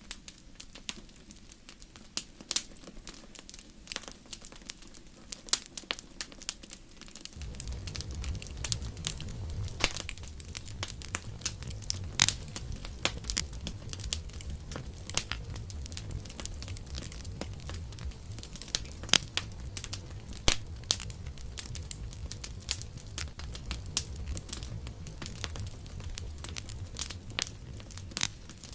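Campfire crackling, with frequent sharp, irregular pops and snaps. About seven seconds in a low rumble joins the crackling and runs until just before the end.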